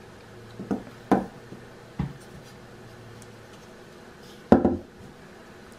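Wooden frame bars knocking and clicking as their mitred corner joints are pushed together by hand: a few short knocks in the first two seconds and a louder one about four and a half seconds in.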